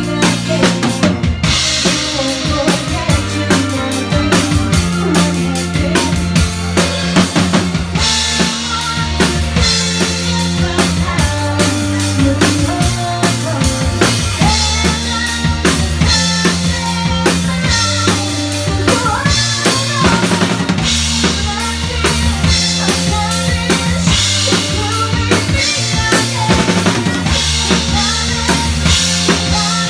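Live band playing a song: a drum kit keeps a steady beat with bass drum and snare, an electric guitar plays over it, and a bass line holds low notes that change every second or two.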